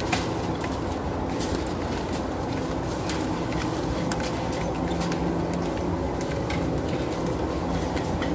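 Supermarket aisle din with a shopping cart rolling along the floor, its wheels and wire basket rattling, and many small clicks.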